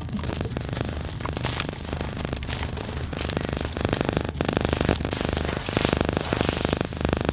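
Hands squeezing and crumbling wet sand and cement into a tub of muddy water: gritty squelching, splashing and crackling, getting louder and busier about three seconds in.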